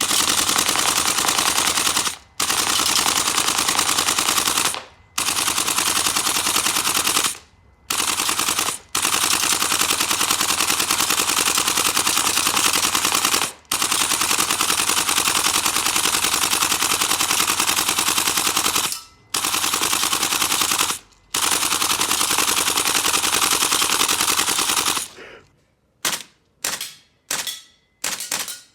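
HPA-powered airsoft MWS rifle firing on full auto in long sustained bursts with short pauses between them. Near the end it switches to quick short bursts.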